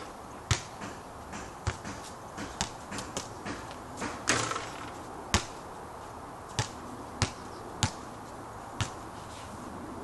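Basketball bouncing on an outdoor court: a loud smack about half a second in as the ball lands after a shot, scattered lighter knocks, then three evenly spaced dribbles in the second half.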